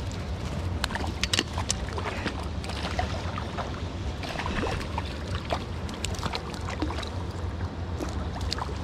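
Flowing river water with a steady low rumble, broken by many small scattered clicks and splashes.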